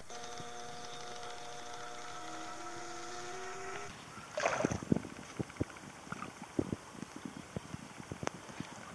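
Goldfish crowding at a pond surface, making irregular small pops and plops as they mouth at the water, with a short splash about four and a half seconds in. For the first four seconds a steady hum of several tones, one slowly rising, runs under it and then stops.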